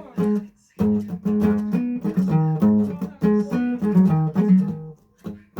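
Guitar being played, a run of plucked notes and chords, with a short break about half a second in and dying away near the end.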